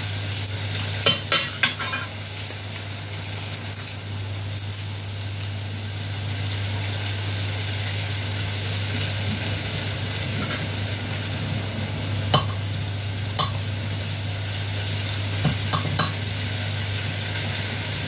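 Chicken frying in a pan with a steady sizzle over a steady low hum, with a scattering of small clicks and taps from garlic cloves being handled and peeled at the counter.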